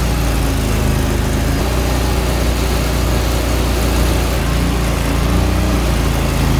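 A boat's outboard motor runs steadily under way, its low hum wavering a little in pitch, over a loud rush of wind and water.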